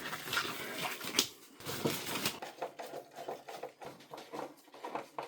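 Plastic headlight parts being handled and set down on a hard floor: a scraping rustle in the first couple of seconds, then scattered light clicks and taps.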